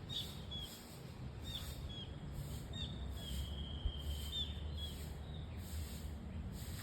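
A bird giving short repeated chirps, with one longer held note in the middle, over a high insect buzz pulsing about once a second and a low steady hum.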